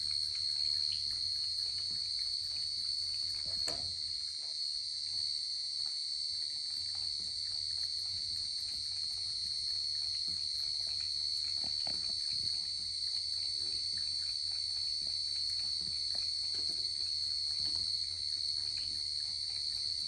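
A cat lapping water from a basin, heard as faint quick licks and splashes, under a loud, steady high-pitched whine that is the loudest thing throughout.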